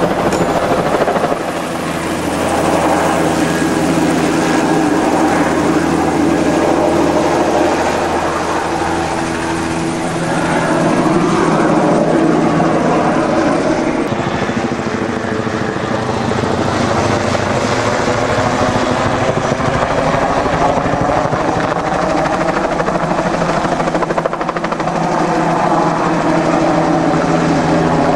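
Bell 206 JetRanger helicopter, its turbine engine and two-blade main rotor running at flight power, heard from the ground as it hovers and flies overhead with a long-line load. The sound sweeps and swirls as the aircraft moves overhead.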